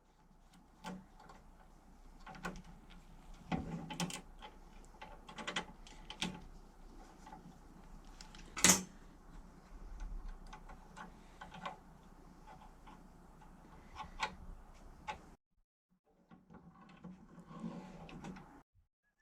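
Irregular clicks, clanks and knocks of tools and metal parts being handled on a workbench, with one sharp bang about nine seconds in. The clatter cuts off abruptly, then starts again briefly near the end.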